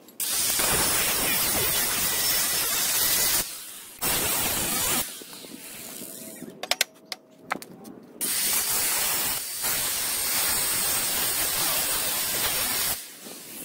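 Handheld angle grinder cutting through the metal seat brackets on a mini bike frame: a steady grinding noise in three runs, a long one, a short one about four seconds in, and another long one from about eight seconds in. A few sharp clicks come in the pause between.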